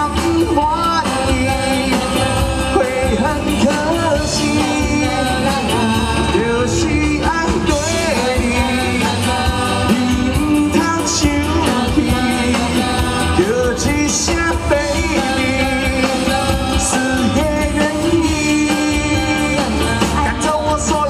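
Live pop-rock band playing a passage between sung verses: a melodic lead line over drums and bass guitar with a steady beat.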